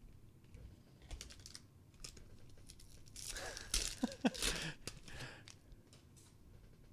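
Light clicks of trading cards being flipped and slid against each other, then, about three seconds in, a louder spell of crackling as a foil card-pack wrapper is handled and pulled open.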